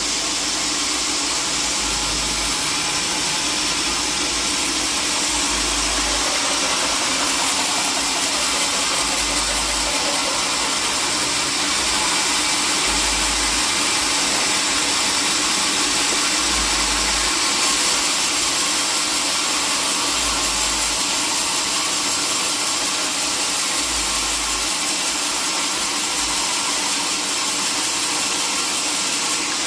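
Sawmill machinery running steadily, a loud, unbroken mechanical noise with a constant hum and no breaks.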